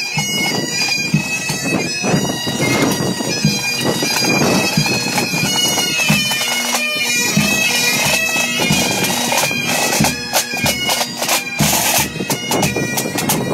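Pipe band playing as it marches past: Highland bagpipes sounding their steady drones and melody, with snare, tenor and bass drums beating, the drum strokes standing out more sharply in the second half.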